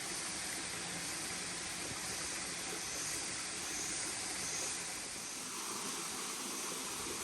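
Waterfall running: a steady rush of falling water.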